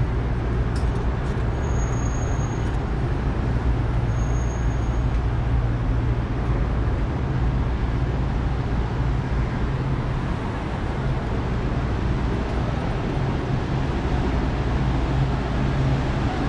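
Steady road traffic noise from a busy multi-lane road, with a low steady hum underneath. Two brief faint high tones sound in the first five seconds.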